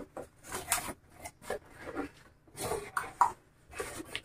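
Cardboard scraping and rubbing in short, irregular bursts as a boxed headset is slid out of a corrugated shipping carton.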